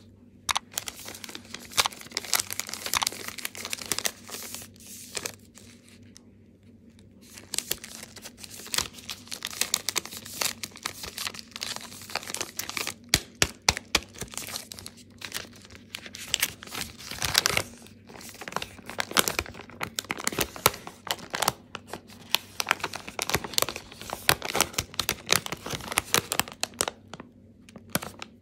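Crinkling and tearing of a dark chocolate bar's foil-lined paper wrapper as it is handled and torn open, with many sharp crackles and a short lull about six seconds in.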